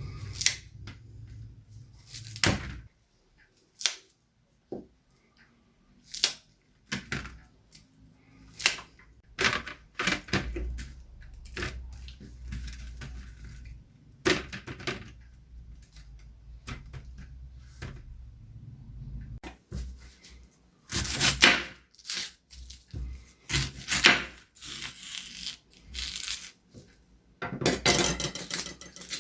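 Kitchen food-preparation handling sounds: scattered sharp knocks and clicks, then denser crackling and rustling bursts near the end, over a low hum through the middle stretch.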